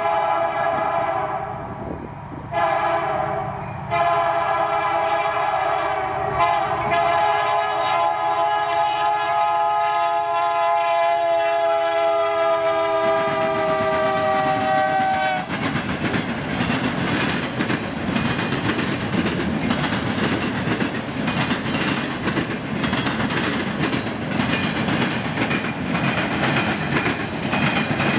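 Nathan K3 five-chime air horn on a Union Pacific EMD SD70M locomotive sounding for a grade crossing: a blast, a shorter blast, then one long blast held about eleven seconds, its pitch dropping as the locomotive passes. After the horn stops, the rumble and wheel clatter of the freight cars rolling by.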